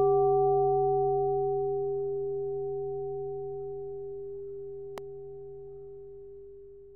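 A single struck, bell-like tone sound effect ringing and fading steadily, with a faint click about five seconds in.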